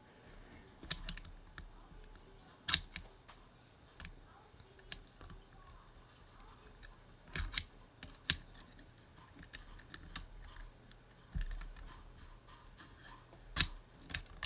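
Scattered, irregular key clicks on a Win60 HE keyboard, a few at a time with pauses between, not steady typing.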